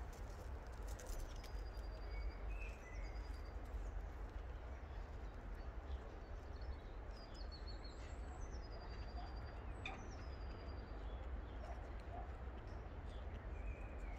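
Small songbirds singing short, high, thin whistled phrases every second or two, over a steady low rumble of outdoor background noise.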